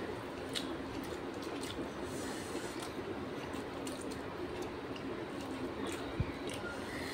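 Eating by hand: fingers squeezing and mixing cooked rice and curry, with scattered small wet clicks and squishes over a steady low hum. A single short low thump comes about six seconds in.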